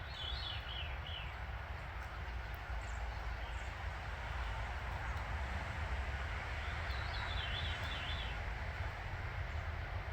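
A songbird sings two short warbling phrases about seven seconds apart. Under it runs a steady outdoor background hiss and a low rumble.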